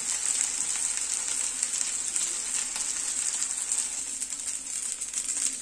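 Chopped chicken-fillet cutlets sizzling steadily as they fry in hot oil in a frying pan.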